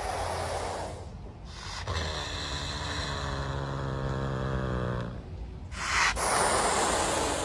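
Caracal hissing, then a low, steady growl lasting about three seconds, then a louder hiss near the end.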